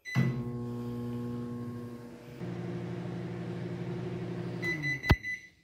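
Microwave oven running at low power: a steady electric hum that shifts in tone about two and a half seconds in. Near the end it stops with a short high beep and a sharp click.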